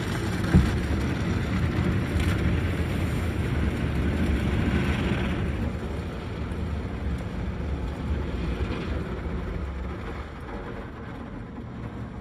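Automatic car wash heard from inside the car's cabin: water and washing equipment working over the body make a steady rushing noise, with a single thump about half a second in. The noise eases off gradually in the second half.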